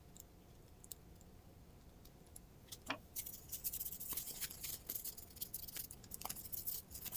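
Faint scratchy rustling and small clicks of a paper towel wiping excess grease off a chrome ratchet head, starting about three seconds in.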